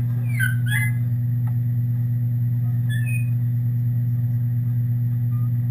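A steady low hum, with a few short high squeaky chirps about half a second in and again around three seconds.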